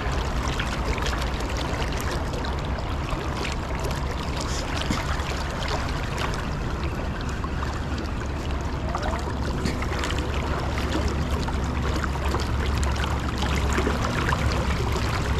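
Flowing river water close to the microphone: a steady rushing noise with many small splashes and trickles.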